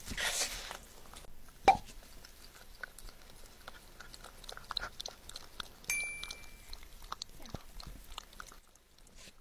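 Yorkshire terrier puppy licking and eating soft food from the table and out of a ceramic mug: a run of small wet clicks and smacks of tongue and mouth. A sharp knock about one and a half seconds in, and a short ringing ding near six seconds.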